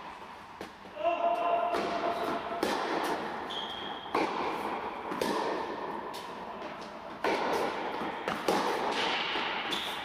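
Tennis ball being struck by rackets and bouncing on the court during a rally, with a sharp hit about once a second, each echoing in a large indoor hall.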